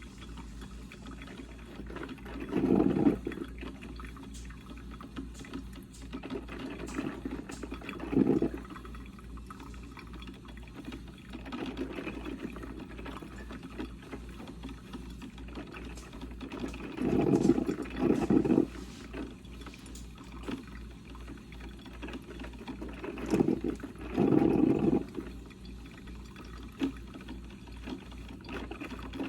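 Coffee percolator perking: irregular gurgling spurts of water, a louder one every four to six seconds, over a steady low bubbling.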